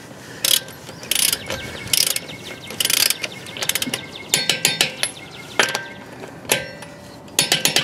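A torque wrench ratcheting as it tightens car lug nuts toward 76 foot-pounds, in short bursts of rapid pawl clicks on the back-strokes, then scattered sharper clicks. The wrench has to turn a good deal on each nut, which the owner takes as a sign that the impact wrench did not over-torque them.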